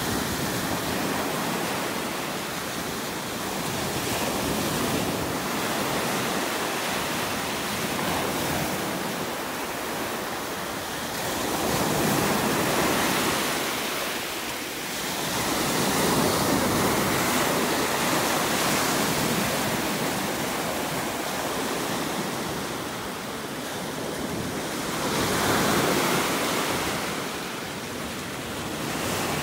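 Small surf breaking and washing up the sand on an incoming tide, a steady rush of water that swells louder every several seconds as the bigger waves come in.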